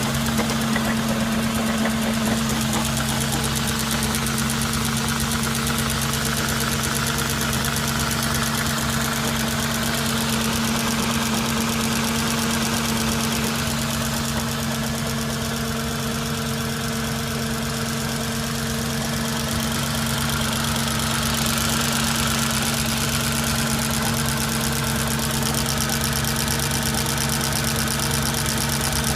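Audi S4 B6's 4.2-litre V8 idling cold, a steady idle with a knocking running through it.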